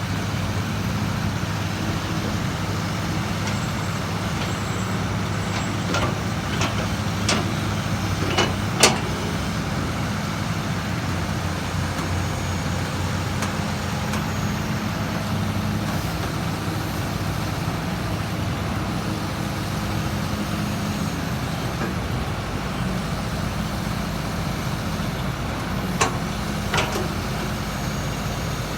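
Hydraulic excavator's diesel engine running steadily, with a few sharp knocks: a cluster about six to nine seconds in, the loudest near nine seconds, and two more near the end.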